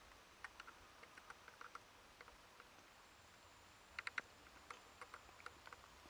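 Near silence broken by scattered faint, irregular clicks and ticks, with a quick run of three louder ones about four seconds in.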